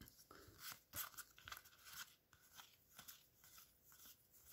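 Faint rustling and a string of irregular soft ticks from Magic: The Gathering cards being slid one by one off a stack held in the hand.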